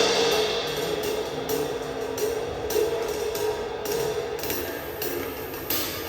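Drum kit played in a sound check: a cymbal crash rings out at the start, followed by a run of cymbal, hi-hat and drum strokes.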